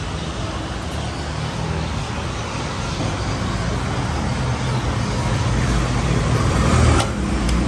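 Steady rumbling background noise, with a single sharp click about seven seconds in.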